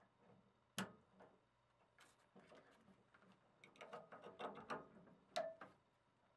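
Faint scattered clicks and rattles of plastic wiring-harness connectors and cables being handled and plugged together, busiest about four to five seconds in, with the loudest click near the end.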